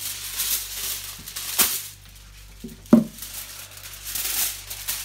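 Aluminium foil crinkling and rustling in uneven bursts as it is pressed down over a baking tray. There is a sharp click about a second and a half in, and a louder knock near the three-second mark.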